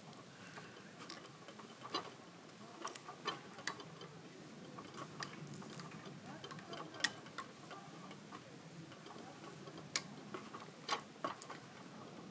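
Wood campfire crackling: irregular sharp snaps and pops over a low steady hiss.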